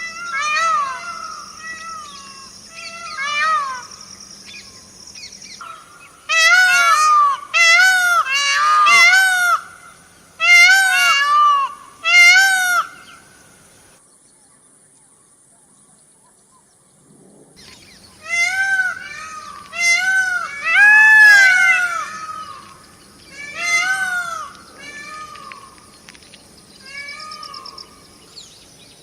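A bird calling in bouts of short, rising-and-falling notes repeated about two a second, with a pause of about three seconds near the middle.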